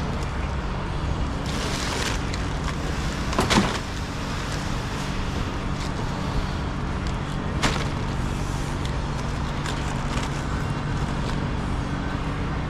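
Steady workshop background hum. A sharp knock, the loudest sound, comes about three and a half seconds in, a lighter click follows near eight seconds, and a brief hiss rises around a second and a half in.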